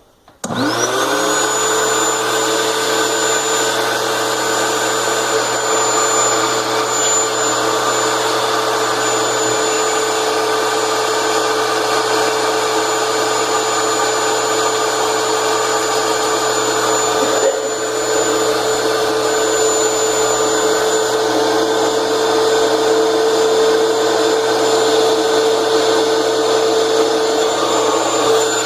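Electric air-mattress inflator switched on: its small blower motor spins up with a rising whine over about a second, then runs steadily at full speed, with one brief dip about 17 seconds in.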